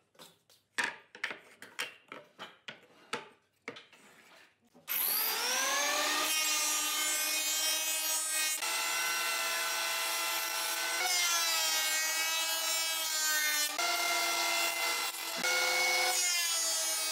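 A run of sharp wooden knocks, then a stationary jointer's motor starts about five seconds in, its whine rising as it spins up. It runs on steadily while a board is fed over the cutterhead, the pitch shifting every few seconds as the cut loads the cutterhead.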